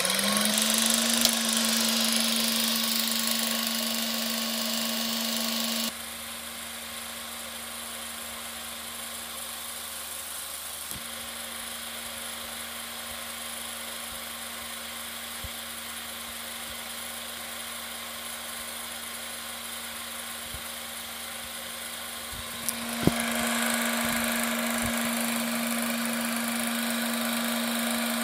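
Late-1930s Bell & Howell Filmo Showmaster 16mm silent film projector starting up, its motor rising in pitch within the first second and settling into a steady hum with the whir of the film mechanism. The sound drops noticeably softer at about six seconds and comes back up after a sharp click at about twenty-three seconds.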